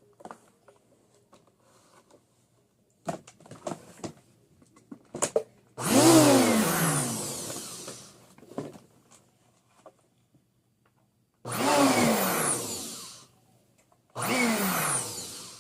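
Vacuum cleaner motor switched on in three short bursts. Each time it starts suddenly, then winds down with a falling pitch as it fades out. Small clicks and knocks of handling come between the first two bursts.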